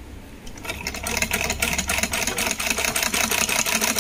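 Antique sewing machine stitching through fabric: it starts up about half a second in, speeds up, and then runs at a steady, rapid clatter of needle strokes.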